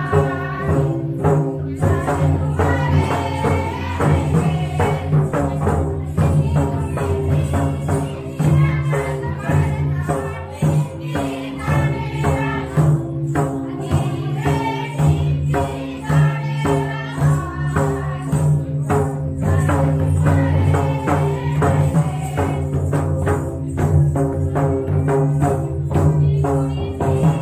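Adivasi Karam dance folk music: a group singing a folk song over mandar drums, with jingling percussion, keeping a steady beat throughout.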